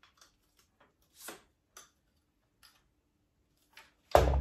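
Scattered light clicks and knocks from an aluminium-alloy tripod stand being handled, with a slightly louder knock about a second in. Near the end comes one loud, sudden thump.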